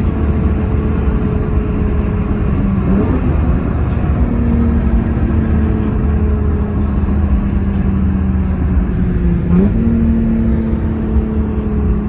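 Lexus IS250's 2.5-litre 4GR-FSE V6 running under way, with an aftermarket intake and a large exhaust leak. It makes a steady drone that sags slowly in pitch and jumps up sharply twice, about three seconds in and again a couple of seconds before the end.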